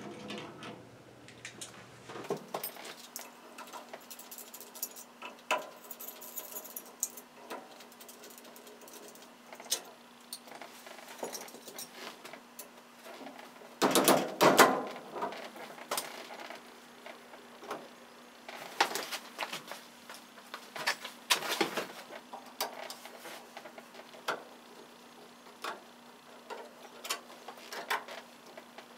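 Scattered clicks, taps and metal clinks of hand tools and small parts worked at the top of a 1963 Chevrolet C10's steering column as the steering wheel comes off. There is a louder run of knocking and rattling about halfway through, and two shorter runs a few seconds later.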